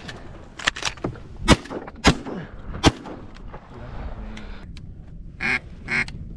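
Shotguns firing at flying mallards, about five shots in quick succession over the first three seconds. Near the end, two short, loud duck quacks.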